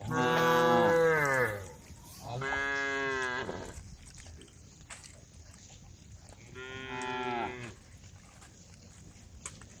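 Cattle mooing: three long calls a few seconds apart, the first the loudest and dropping in pitch at its end.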